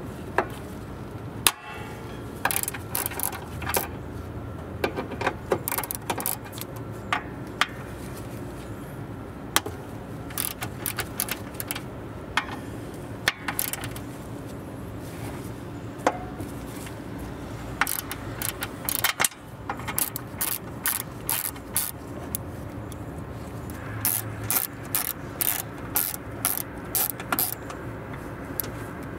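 Socket ratchet clicking in quick runs as it loosens the bolts holding the hood latch, with scattered single clicks in between.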